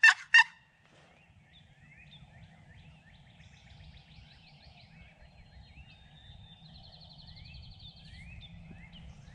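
The last pulses of a wild turkey gobbler's gobble cut off in the first half second. Faint songbird chirps and a short high trill follow over a low steady rumble.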